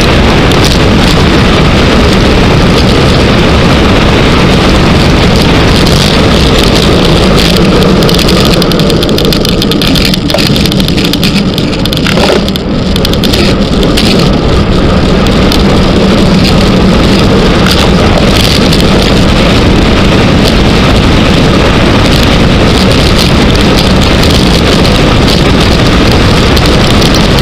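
Loud, steady rush of wind buffeting the microphone of a bike-mounted camera on a fast road-bike descent, easing slightly for a moment about halfway through.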